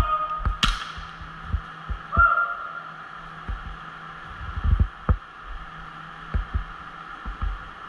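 Scattered low thuds over a steady background hum, with a sharp click near the start and a brief distant shout about two seconds in.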